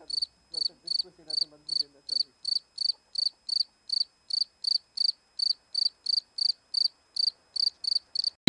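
Cricket chirping sound effect: a steady, even run of short high chirps, about three a second. It is the stock 'crickets' gag for an empty, silent room.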